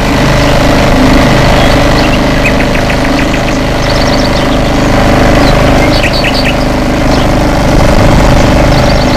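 An engine running steadily at a low, even speed, with short high chirps over it.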